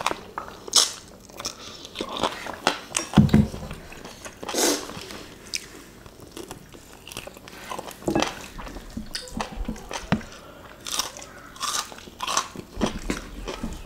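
Close-up eating sounds: crunchy bites and chewing of pan-fried curry chicken and rice eaten by hand, in short irregular crackles. There is a heavier low thump about three seconds in.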